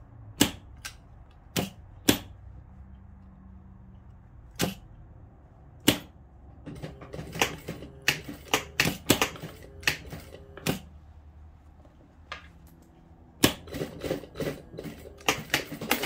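Sewing machine stitching in short stop-start runs, a series of sharp mechanical clicks that come in quick bursts several times a second, over a faint low motor hum.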